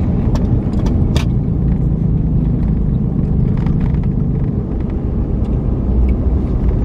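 Steady low road rumble of a car driving, heard from inside the moving car, with a few sharp clicks in the first second and a half.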